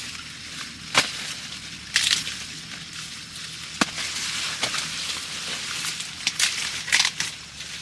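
Dry crackling and rustling, broken by sharp snaps every second or so.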